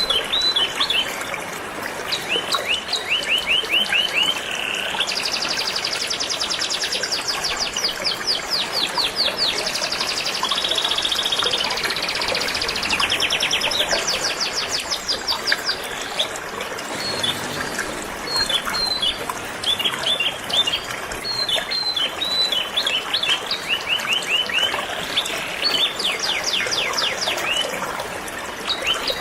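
Canary singing long, fast trills and chirps over the steady rush of a flowing river.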